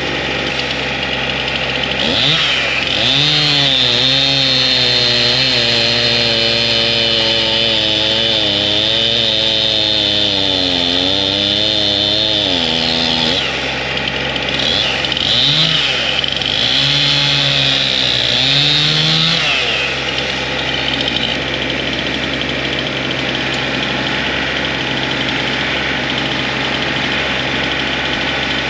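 Stihl Farm Boss chainsaw cutting at full throttle, about ten seconds and then a shorter second cut a couple of seconds later, its pitch wavering and dipping under load. A steady engine runs underneath throughout and is left running alone for the last third.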